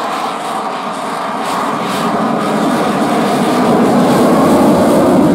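Canadian CF-18 Hornet flying overhead, the steady rushing noise of its twin General Electric F404 jet engines, growing louder over the last few seconds.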